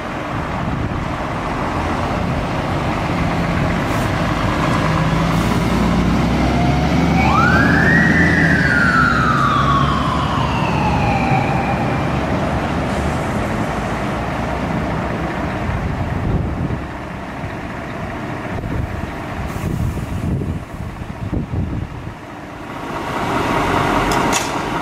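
Scania fire engine pulling away, its diesel engine running under load. About seven seconds in, its siren gives one wail, rising quickly and then falling slowly over about four seconds. The engine sound then fades as the truck drives off.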